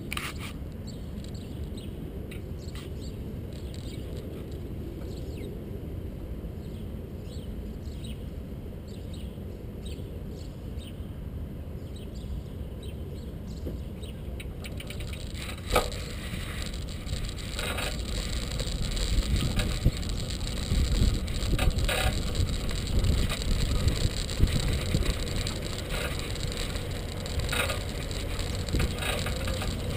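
Wind and low rumble on a bicycle-mounted camera as the bike rides along, with small ticks and rattles. It gets louder and rougher about halfway, beginning with a sharp knock, then more knocks and clatter as the bike goes over bumps.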